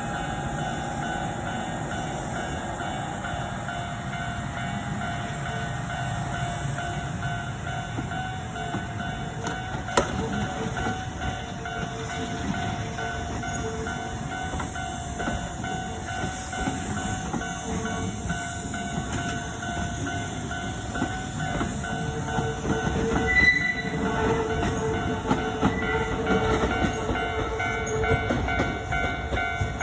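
Kintetsu trains running past a level crossing, whose warning bells ring steadily throughout over the low rumble of the trains. A sharp click sounds about a third of the way in. Short higher-pitched notes come in several times in the last quarter, and the train rumble grows louder near the end.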